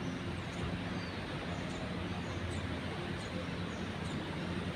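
Steady vehicle engine hum with road noise, and a few faint short high chirps.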